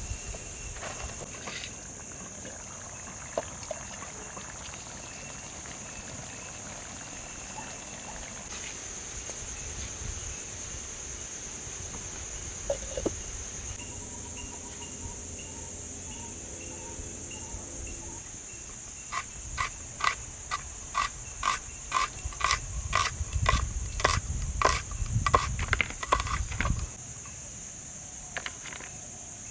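Insects shrilling steadily on one high, unbroken note. About two-thirds of the way in comes a run of sharp knocks, roughly two or three a second, lasting some eight seconds.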